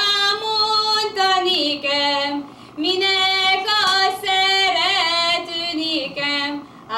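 A girl singing a Hungarian folk song solo, unaccompanied, in long held phrases with a few quick ornaments, pausing for breath about two and a half seconds in and again near the end.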